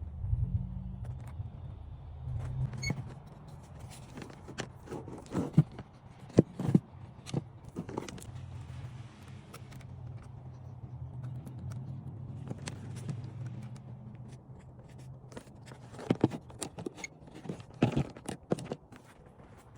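Irregular knocks, clicks and scrapes of objects being handled, over a steady low hum.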